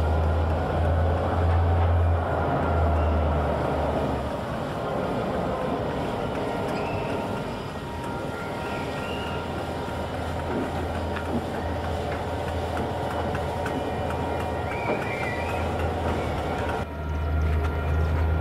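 Diesel switching locomotive running with a steady low engine drone, with a few short high squeals in the middle. The sound grows louder again near the end.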